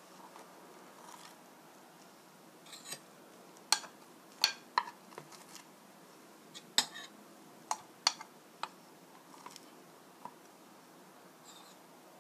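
Metal spoon and fork clinking against a frying pan and a ceramic plate as boiled potatoes are lifted out: about ten sharp, separate clinks at an uneven pace, most of them in the middle of the stretch.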